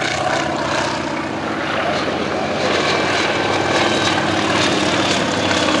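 Radial engine and propeller of a low-flying PZL agricultural aircraft, running steadily at flying power. The level dips slightly about a second in, then rises again.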